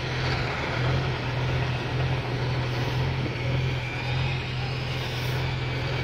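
Outdoor construction-site ambience: a steady low mechanical hum under an even wash of noise, with no distinct single event.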